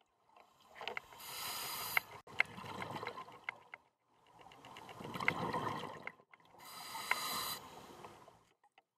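Scuba regulator breathing underwater: a hissing inhalation, then a longer rough bubbling exhalation with small clicks, then a second hissing inhalation near the end.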